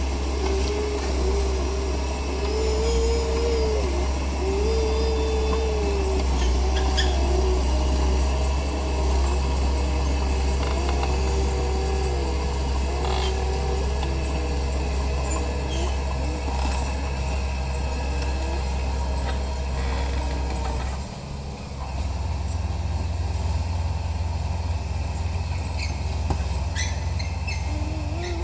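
Komatsu D31P bulldozer's diesel engine running under load, a steady low rumble with a wavering whine that rises and falls. The engine drops off briefly about 21 seconds in, then picks up again.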